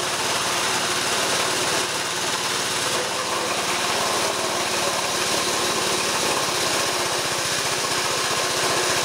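Small Honda single-cylinder petrol engine running steadily, belt-driving a car air-conditioning wobble-plate compressor that is pumping air. The engine's note changes slightly about six seconds in.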